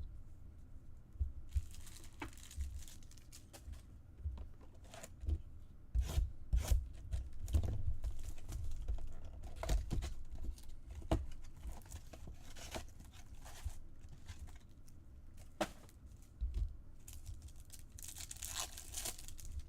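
Trading-card pack wrappers torn open and crinkled, twice: once about two seconds in and again near the end. In between come light clicks, taps and low thumps as cards are handled and set down on a table.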